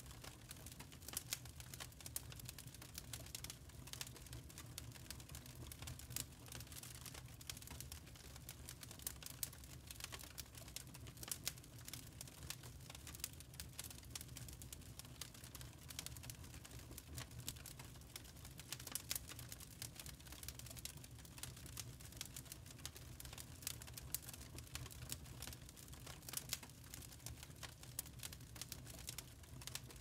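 Burning lump charcoal crackling: many small, sharp, irregular pops and ticks, over a faint steady low hum.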